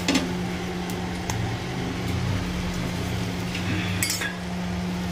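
Steel spoon clinking and scraping lightly against an iron tawa as oil is spread over a paratha, a few clinks over a steady low hum.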